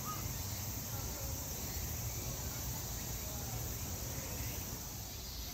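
Steady high-pitched chirring of insects in the background, with a low, even rumble beneath it.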